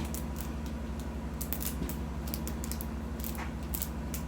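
A large Wacky Tracks snap-and-click fidget chain being bent link by link, giving a run of irregularly spaced sharp snapping clicks.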